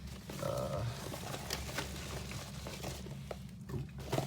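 Paper and plastic packaging rustling and crinkling as small items are taken out and handled, with light clicks and taps.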